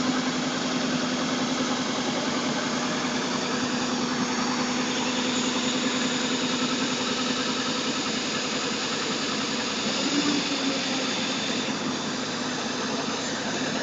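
Aquatic weed harvester's engine running steadily, with a constant low hum under a mechanical clatter.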